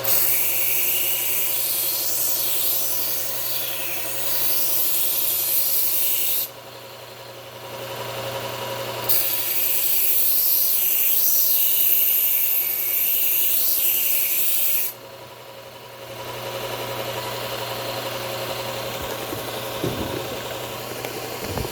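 A knife edge ground against the belt of a running belt sharpener in two long passes of about six seconds each. A steady motor hum runs under and between them. The grinding is raising a burr along the edge.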